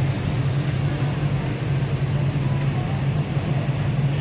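Steady, unbroken low mechanical hum of a running motor or machinery.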